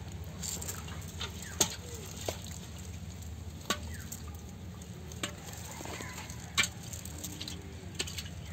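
Nylon cast net being pulled and shaken over dry ground, its mesh rustling and crackling through dry grass and twigs, with about five sharp ticks scattered through.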